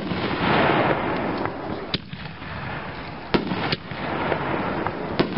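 Pyro King Electric Neon Muscle Shell reloadable mortar shells firing and bursting overhead: about five sharp bangs at uneven spacing, with a noisy crackle spreading out between them.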